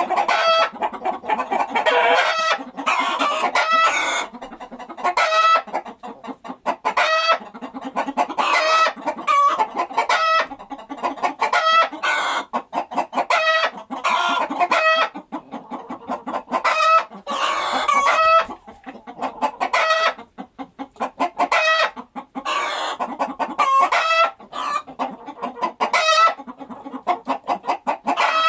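Chickens clucking and squawking in runs of short, repeated calls with brief lulls between them.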